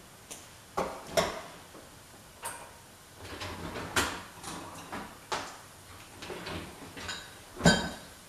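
Mustard seeds and lentils frying in hot oil in a non-stick pan, with the seeds popping: roughly a dozen irregular sharp pops over a faint hiss, the loudest near the end.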